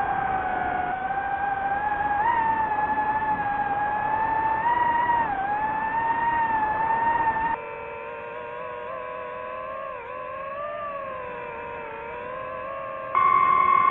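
Drone motors and propellers whining, the pitch wavering up and down with throttle. About halfway in it cuts to a quieter, lower whine, and near the end to a louder, higher one.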